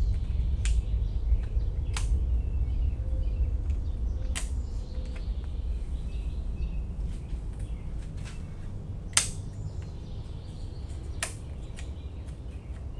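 Scattered sharp clicks and taps from hands working the opened trigger housing and small screws of a Stihl FS90R trimmer's control handle, the loudest about nine seconds in, over a steady low rumble.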